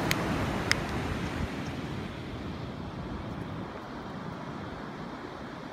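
Steady outdoor rushing noise of wind and distant surf, easing slightly after a couple of seconds, with two short clicks within the first second.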